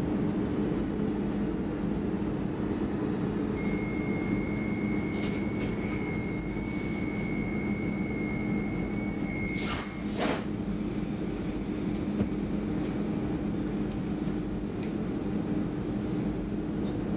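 Stockholm commuter rail X10 electric train running with a steady rumbling hum. A high steady squeal sets in a few seconds in and lasts about six seconds. It ends just before two sharp knocks about half a second apart.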